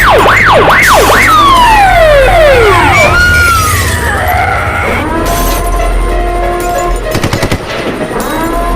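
Siren sound effects: a fast rising-and-falling siren for about the first second, then several siren tones sliding down in pitch. After that, steady tones sound over a low rumble, and a short burst of sharp clicks comes about seven seconds in.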